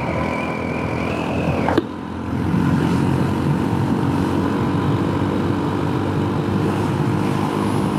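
Honda Super Cub C125's small single-cylinder four-stroke engine running steadily at road speed, with wind noise. A steady high-pitched tone in the first two seconds stops with a sharp click.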